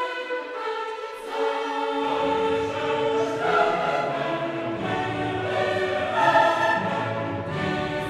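Background music with a choir singing over orchestral accompaniment; fuller, lower parts come in about two seconds in.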